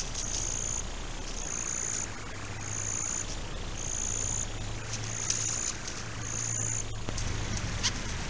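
A calling insect giving a high, even-pitched buzz about half a second long, repeated roughly once a second, over a low steady hum.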